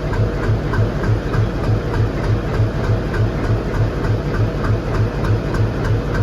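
ALCO WDM-3D diesel locomotive's 16-cylinder ALCO 251 engine idling: a steady, even throb of about four beats a second, with a light ticking in time with it.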